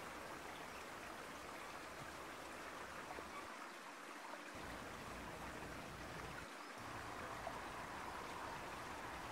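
Faint, steady rush of fast-flowing river water: the River Wye's incoming flood tide running hard.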